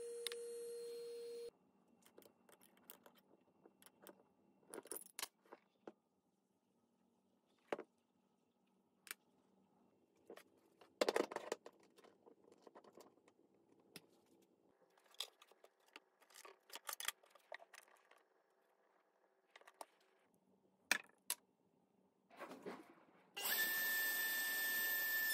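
Scattered metallic clicks, clinks and knocks of hand tools being handled, wrenches and a router bit being set into a table-mounted router, in a quiet room. It opens with a steady fan hum from the 3D printer that stops after about a second and a half, and near the end the router motor starts and runs with a loud, steady whine.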